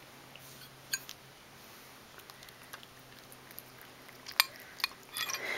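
A cat licking and chewing macaroni and cheese from a spoon and bowl, with a few sharp little clicks, one about a second in and several near the end.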